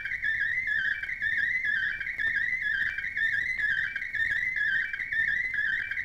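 Radio facsimile picture signal: a continuous warbling tone around 2 kHz whose pitch wavers up and down without a break. The shifting pitch carries the shades of the picture being scanned.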